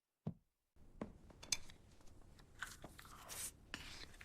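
Faint sounds of people eating: crunchy chewing and bites with scattered small clicks, starting about a second in.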